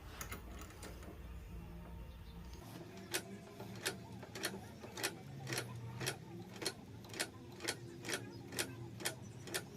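Faint, evenly repeating metal clicks, about two a second, from a wrench working back and forth to tighten a 10 mm bolt and nut. The clicking starts about three seconds in, after a few seconds of low hum.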